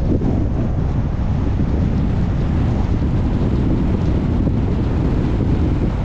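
Steady low rumble of a car on the move, with wind noise on the microphone.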